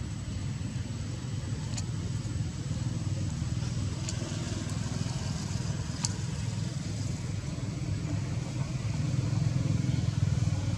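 A steady low rumble, growing a little louder near the end, with a few faint clicks about two, four and six seconds in.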